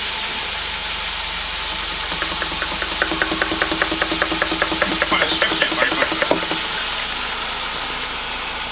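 A 12-inch Audio System Radion subwoofer, with no enclosure around it, playing a deep bass tone while being overdriven. From about two seconds in, a rapid pulsing chuff and rattle of about seven beats a second comes in over the hum, and it dies away after about six seconds.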